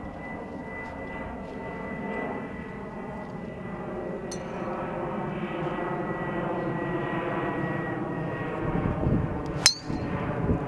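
A golf driver strikes a teed ball once near the end, a single sharp crack and the loudest sound. Under it runs a steady background drone that slowly grows louder.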